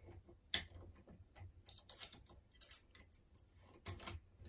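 Irregular small metallic clicks and scrapes from a curtain pick and tension wire working the levers inside a 5-lever mortice lock, the sharpest clicks about half a second in, twice around the middle and twice near the end. The pick was catching on the back of a lever.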